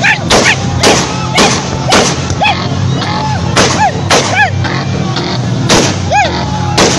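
Music with a steady beat, about two hits a second, and short sliding melodic notes between the beats.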